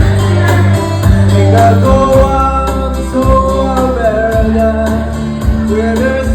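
Recorded song music with a steady bass and a regular light beat, and a melody line moving between held notes.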